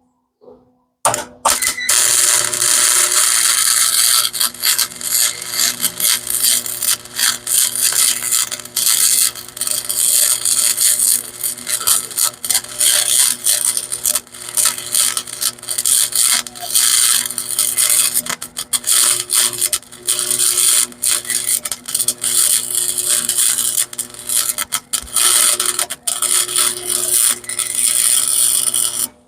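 Welding arc crackling and sizzling as a bead is laid on a steel shock mount, starting about a second in and cutting off abruptly near the end when the trigger is released.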